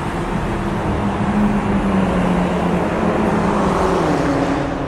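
A car engine running, with a steady pitch that swells in loudness and then drops in pitch about four seconds in.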